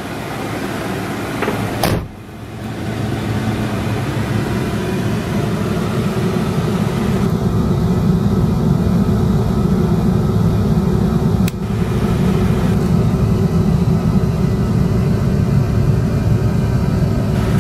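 1999 Ford F450 flatbed truck's engine running with a steady low rumble. It dips briefly after a sharp click about two seconds in, then grows louder, and there is another sharp click near the middle.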